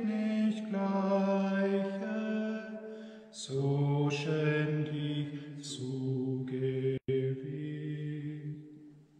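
Hymn singing in church: sung phrases of long held notes, with a lower voice taking over about three and a half seconds in. The sound cuts out for an instant about seven seconds in, then fades away near the end.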